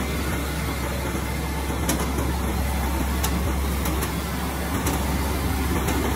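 Single-phase combined rubber roller rice mill running steadily: a constant mechanical drone with a low hum underneath.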